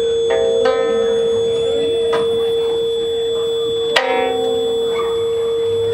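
Free-improvised music: a steady, pure electronic tone held throughout, with a few plucked string notes ringing out over it, the sharpest about four seconds in. Faint high electronic tones slowly rise above.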